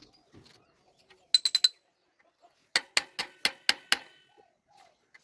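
Hammer tapping a new bearing cup into a bicycle hub shell to seat it, sharp metal-on-metal clinks that ring. A quick run of four taps comes about a second in, then about six more in a row.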